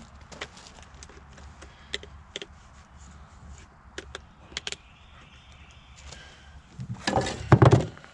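Footsteps on gravel and scattered light clicks, then loud close handling thumps and rustling about seven seconds in as a hand grabs at the recording setup.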